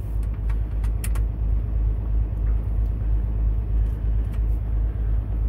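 Idling diesel engine of a Kenworth T680 truck, a steady low rumble heard from inside the sleeper cab. A few light clicks sound over it, mostly in the first second or so.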